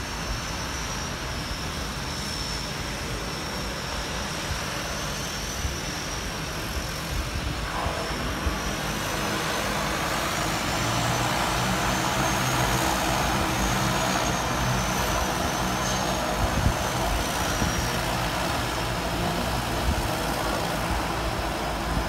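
Seaplane turboprop engines running at a distance: a steady drone with a thin, wavering high whine, growing louder about ten seconds in.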